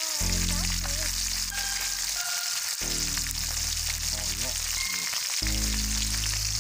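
Background music with sustained chords that change every few seconds and a wavering melody, over a steady high-pitched hiss.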